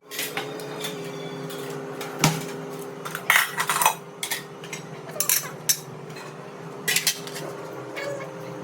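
Plates and serving spoons clinking and scraping as lunch is dished out: a scattering of sharp clinks, several in quick succession about three and a half seconds in, over a steady low hum.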